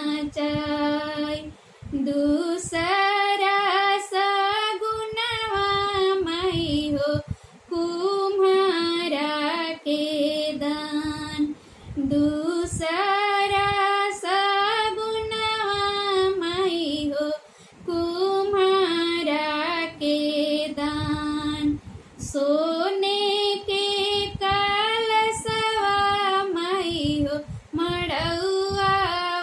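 A woman singing a shagun geet, a traditional North Indian wedding folk song, solo and unaccompanied. She sings in long held phrases with a short breath pause every four to five seconds.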